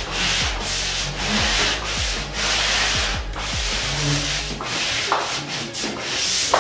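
Abrasive being rubbed by hand over a dried plaster skim coat in an inside wall corner with an angled corner sanding block: repeated rasping back-and-forth strokes, about one to two a second.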